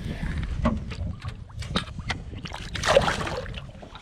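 Small aluminum fishing boat: a run of short knocks and clicks with water sloshing and splashing alongside, and a louder burst about three seconds in.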